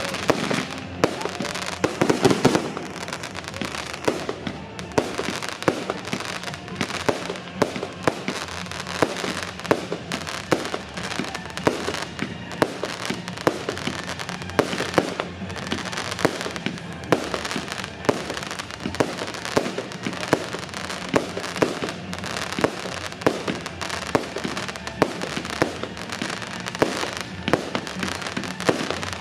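Fireworks display: aerial shells bursting in a rapid, unbroken run of bangs and crackling, with a loud report about every second.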